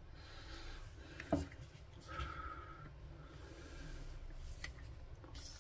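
Faint handling of a small two-stroke strimmer carburettor, with a sharp click a little over a second in and another near the end, then a brief hiss of WD-40 sprayed through a straw into its passages to check that they are clear.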